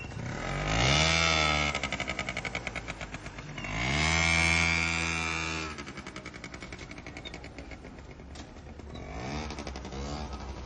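A motor vehicle engine revving up and falling back twice, loudest about a second in and again around four to five seconds in, with a weaker rev near the end; between the revs its firing is heard as a fast, even pulsing.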